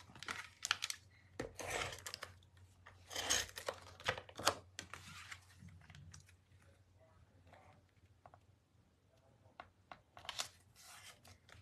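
Cardstock panel being slid and handled on a craft mat: a handful of short papery rustles and scrapes, mostly in the first half, with a quieter stretch before one more near the end.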